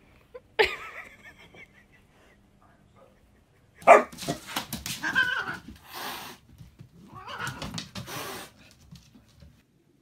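A dog barking, in a run of loud, sudden barks from about four seconds in. A short animal cry comes about half a second in.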